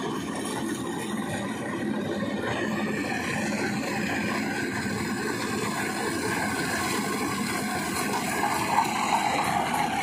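Lovol RG108 Plus combine harvester running steadily as it cuts and threshes standing rice, growing louder near the end as it comes closer.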